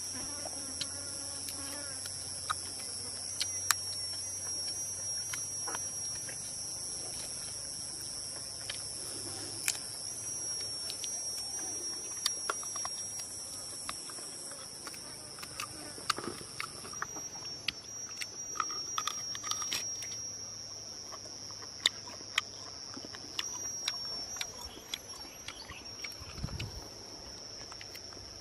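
Insects droning steadily in two high-pitched tones, the higher one stopping about two-thirds of the way through, with scattered small sharp clicks and taps.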